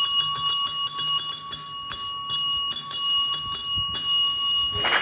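A bell ringing rapidly and continuously, the signal that the auction has closed. It cuts off just before the end.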